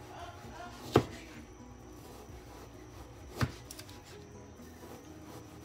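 Chef's knife slicing raw chicken breast and knocking down onto the cutting board: two sharp knocks, about a second in and about three and a half seconds in, and a third right at the end.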